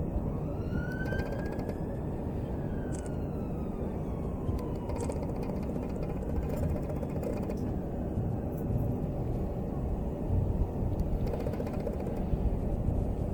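A faint siren wailing: one slow rise in pitch, then a long fall, over a steady low rumble of outdoor background noise.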